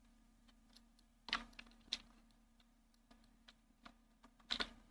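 A handful of faint, short clicks from a computer mouse and keyboard, scattered over a few seconds, above a faint steady low hum.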